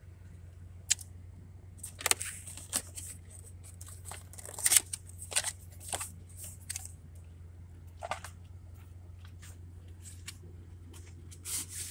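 Cardboard mystery tackle box being handled and opened: irregular scrapes, crackles and rustles of cardboard, the loudest a little before halfway.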